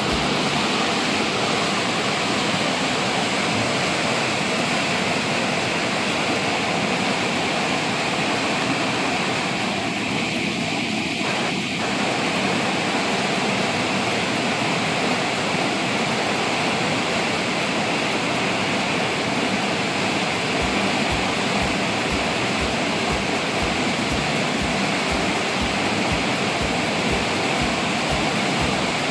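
Fast brown floodwater rushing and churning as whitewater over rapids: a steady, loud rush of a strong current in a river swollen by flooding.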